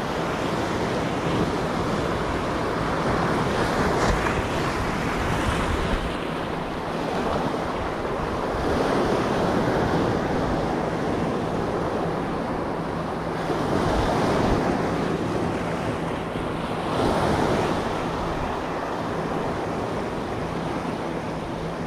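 Sea waves breaking and washing over a rocky shoreline, the surf swelling and easing every few seconds, with wind buffeting the microphone.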